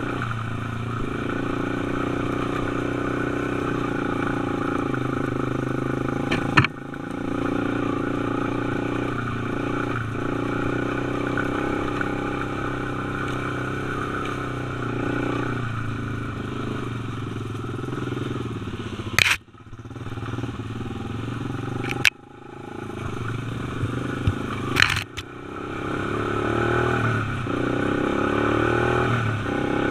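Dirt bike engine running under way, heard from the rider's helmet, its pitch rising and falling with the throttle. Four sharp knocks cut in, the loudest about 19 seconds in, each followed by a brief drop in the engine sound.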